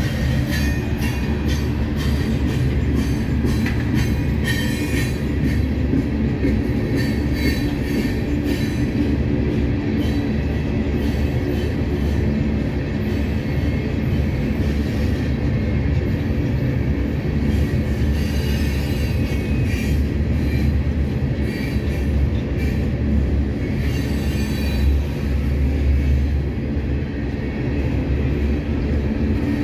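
Herzog ballast hopper cars rolling past close by: a steady heavy rumble of steel wheels on rail, with scattered clicks and some wheel squeal.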